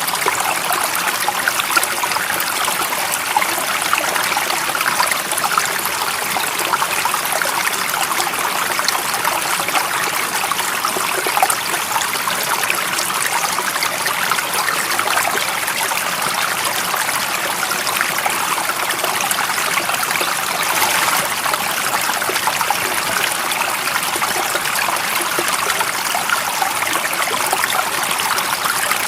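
A stream of water running steadily, a dense, even babble of small trickles with no letup.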